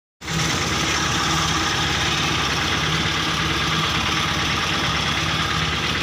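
Vehicle engine idling steadily.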